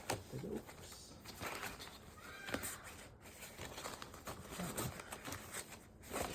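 Faint handling noises of packaging and CPAP parts being unpacked: scattered light clicks, soft knocks and rustling.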